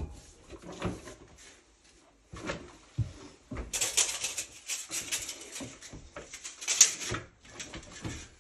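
Irregular knocks, clunks and scraping from hands-on work at a cast-iron vent stack: a rubber coupling and plastic fittings being handled and fitted onto the cut pipe. The rubbing and rustling is densest in the middle, and the loudest knock comes near the end.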